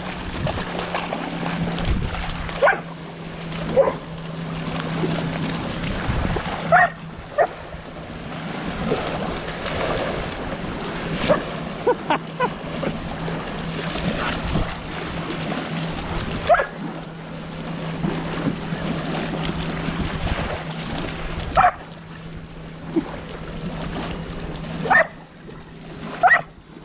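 A Belgian Malinois splashing through shallow lake water, biting at the small waves as they wash in. Short high yips come every few seconds over the steady splashing.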